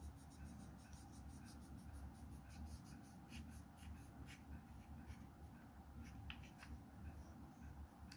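Faint scratching of a drawing tool on paper: short strokes repeated several times a second, over a low steady hum.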